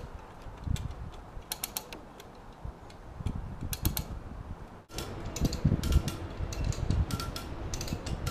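A ratchet clicking in quick short runs, with some creaking, while the mast is hauled aboard on a rope rig.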